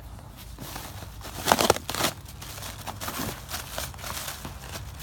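Plastic packaging and a cardboard box crinkling and rustling as a Great Dane tears into the package with her mouth and pulls the plastic bag out, with a loud burst of crinkling about one and a half seconds in.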